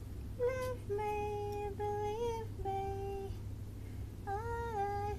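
A woman humming a slow tune to herself: a string of held notes with small pitch slides between them.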